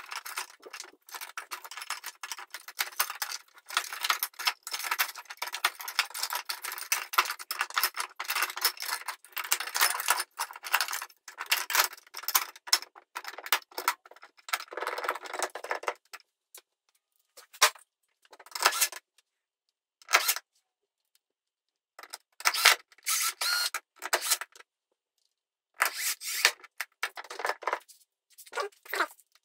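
Plastic keys of an M-Audio Hammer 88 digital piano clattering and clicking as they are fitted back onto the keybed by hand. The clatter is dense at first, then comes in short bursts with silent gaps from about halfway on.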